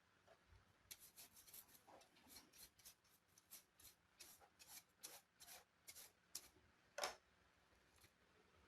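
Faint, quick scraping strokes, about three or four a second for several seconds, ending in one sharper click: a small hand tool or brush working over laptop parts during disassembly and cleaning.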